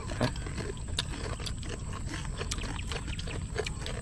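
Crisp roasted suckling-pig skin being chewed: a quick, irregular run of sharp crunches and crackles.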